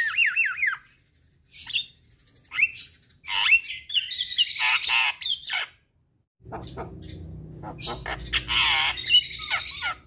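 Javan myna calling in bursts of harsh squawks and rapid swooping whistled notes, with a brief break and a short dead gap before six seconds. Calling resumes after the gap, and a steady low hum comes in with it at about six and a half seconds.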